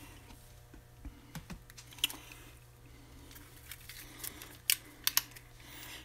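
Scattered small clicks and taps of tools and a solder spool being handled on a cluttered workbench, the sharpest about two seconds in and a quick cluster near the end, over a low steady hum.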